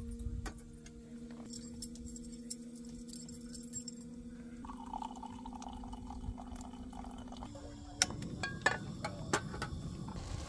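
Coffee poured from a French press into a mug: a few seconds of liquid trickling starting about halfway through. Then several sharp metallic clinks as a frying pan is set on the camp stove, over a steady low hum that shifts in pitch when the pour begins.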